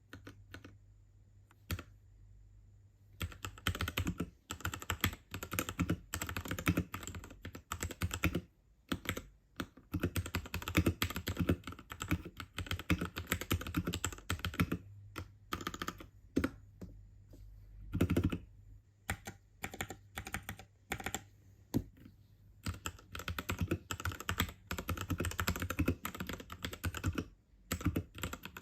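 Typing on a Royal Kludge RK68 mechanical keyboard with red linear switches: a few single keystrokes, then fast runs of key clacks with short pauses.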